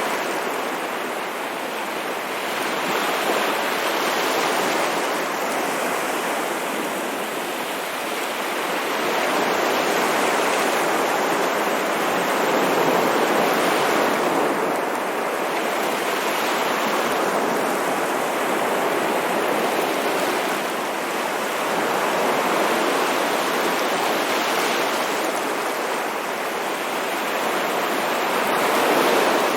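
Ocean waves washing ashore: a continuous surf rush that swells and eases slowly every few seconds.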